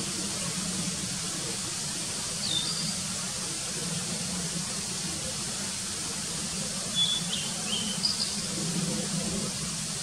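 Male blue-and-white flycatcher singing in short, high phrases: a brief pair of notes about two and a half seconds in, then a run of several quick notes from about seven seconds to just past eight. A steady high hiss runs underneath.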